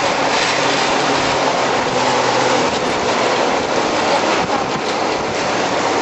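Rushing river water: a loud, steady noise with no pitch, running without a break.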